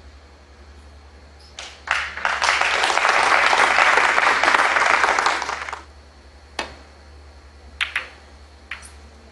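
Arena crowd applauding at a snooker match, a burst of clapping that swells in and fades out after about four seconds. It is followed by three isolated sharp clicks.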